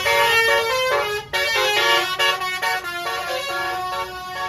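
Basuri musical air horn on a tour bus playing a telolet tune: a loud run of horn notes stepping from pitch to pitch, with a short break a little over a second in.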